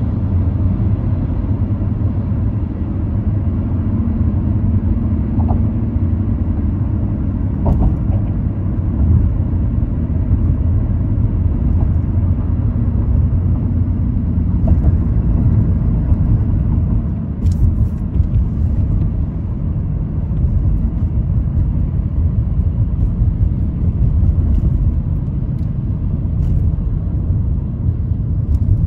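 Car being driven: a steady low rumble of engine and road noise, with a few faint clicks.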